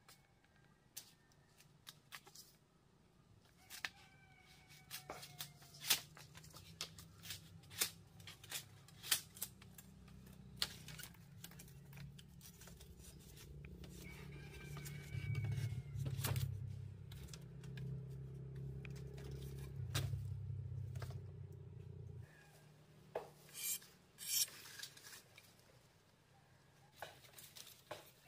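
Irregular sharp clicks and snips, as of hand work with a small cutting tool or brittle material, with a low hum through the middle stretch and a short falling chirp twice.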